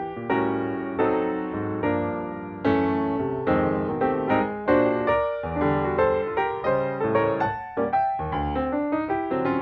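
Background piano music: struck chords and notes that decay between strikes, with a steady pulse.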